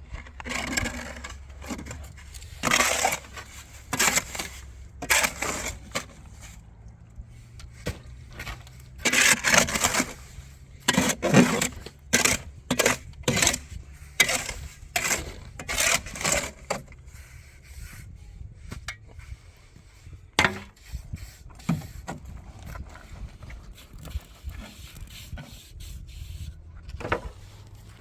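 Repeated scraping strokes of a hand tool on rough building material, roughly one a second for the first two-thirds, then fewer and further apart.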